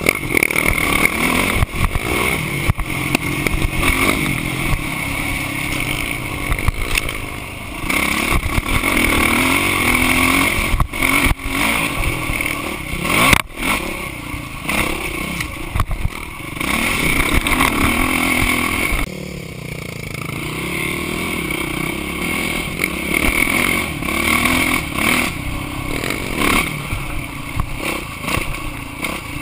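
Dirt bike engine revving up and down as it rides a rough trail, with rattles and knocks from the bike over bumps, heard close through a handlebar-mounted camera.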